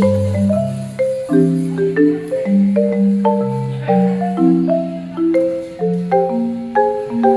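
Background music: a gentle instrumental track with a melody of short, separate notes over a slowly moving bass line.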